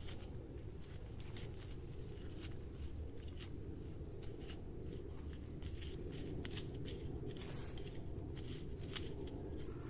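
Scratchy rustling and scraping of soil and plant litter as cloth strips are pushed by hand into a vole tunnel in the ground: many short irregular scrapes and clicks over a steady low rumble.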